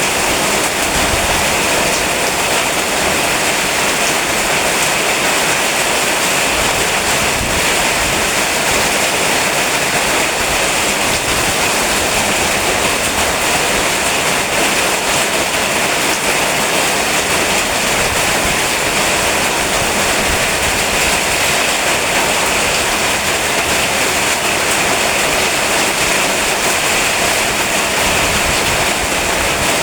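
Rain falling steadily, a dense even hiss with no single drops or other events standing out.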